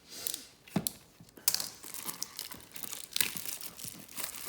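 Plastic wrapping on a trading card hobby box crinkling and tearing as it is pulled open by hand, with a few sharp crackles.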